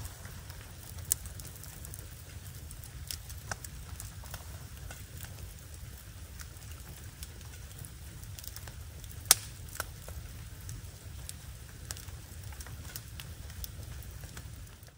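Wood fire burning in a metal fire pit: scattered crackles and pops over a steady low rush, with a sharp pop about a second in and a louder one about nine seconds in.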